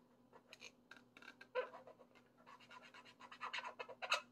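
Marker drawing on an inflated latex balloon: short scratchy strokes, sparse at first and coming thicker and faster in the second half.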